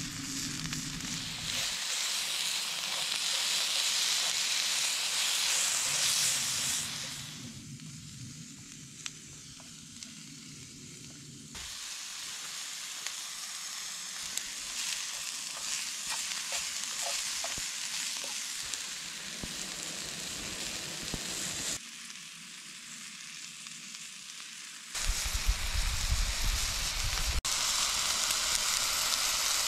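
Potatoes, onions and steak sizzling in a hot pan over a wood-burning camp stove, with a stretch of tossing and stirring; the sizzle drops to a quieter hiss twice and comes back. A low rumble joins it near the end.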